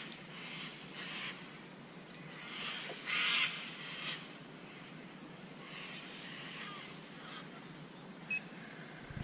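Faint bird calls, repeating roughly every second, the loudest about three seconds in, with a few short high chirps.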